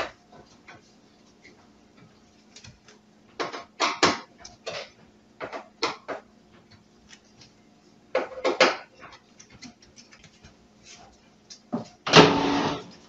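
Sheet-metal back panel of an electric stove being screwed back on with a hand screwdriver: groups of short metallic clicks, knocks and rattles. Near the end comes a louder scrape about a second long.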